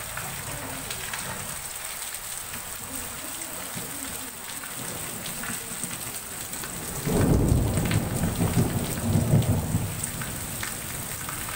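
Heavy rain falling steadily, and about seven seconds in a loud, low rumble of thunder rolls for about three seconds before fading back under the rain.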